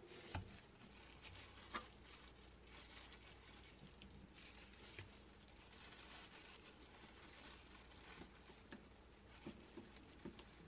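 Faint crinkling of disposable plastic gloves and plastic-wrapped cutting board as raw chicken is handled and sliced, with a few soft, sharp knife taps scattered through.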